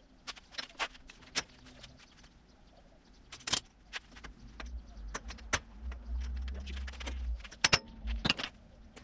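Irregular metal clinks, taps and knocks from hand work on a golf cart buggy's front end, with a low rumble for a few seconds in the middle.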